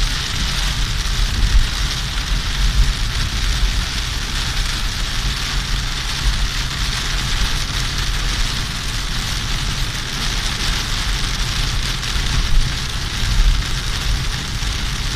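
Torrential rain pelting a car's roof and windscreen, heard inside the cabin as a steady, dense hiss over a low rumble.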